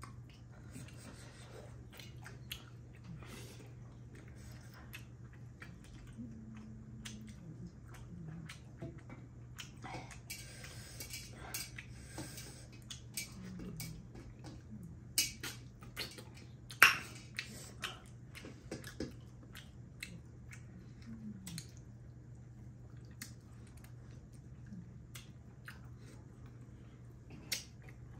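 Close-up eating sounds: chewing, lip smacking and biting into pork trotters and rice eaten by hand, with short clicks of fingers and food on steel plates. One sharp click a little past halfway is the loudest, over a steady low hum.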